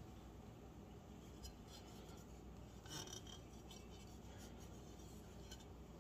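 Near silence with faint handling noise: a polished aluminum intercooler pipe being lifted and turned over in the hands, with light rubs and one small knock or scrape about three seconds in.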